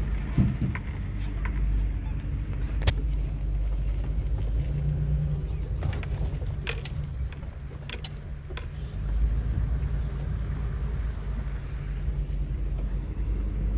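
Vehicle crawling over a rough dirt road, heard from inside the cab: a steady low engine and road rumble, with scattered sharp clicks and rattles as the body jolts over ruts.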